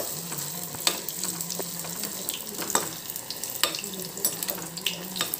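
Battered bajji slices deep-frying in hot oil in a steel kadai: a steady sizzle with scattered crackles and pops.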